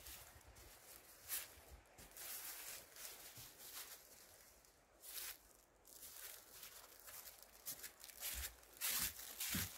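Footsteps crunching and crackling through a thick layer of dry fallen leaves at a walking pace, a step roughly every second, louder near the end.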